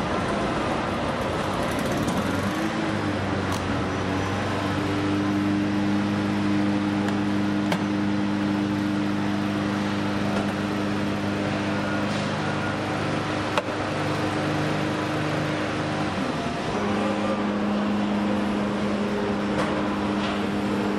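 Factory-floor machinery din with a steady mechanical drone that sets in a couple of seconds in, drops out briefly about three-quarters of the way through and comes back. A sharp click sounds a little past halfway.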